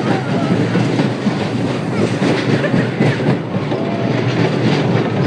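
Small roller coaster train rattling and clattering along its track at speed, heard from a rider's seat: a dense, unbroken clatter with no pause.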